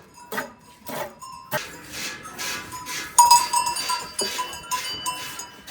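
Bells on a flock of sheep clanking as the animals move, with one bell ringing out clearly about three seconds in.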